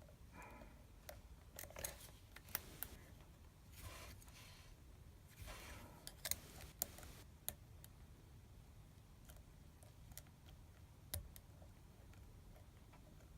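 Faint, scattered metallic clicks and short scrapes of a SouthOrd MAX medium hook pick probing the pin stack of a Union oval lock held under a Mad Bob tension wrench, working from the back pins.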